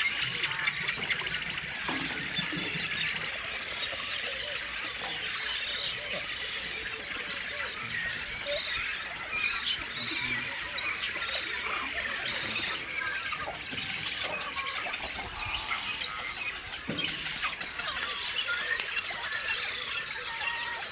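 Chorus of many birds calling at once: a dense background of chatter, with short high calls repeating about once a second from a few seconds in.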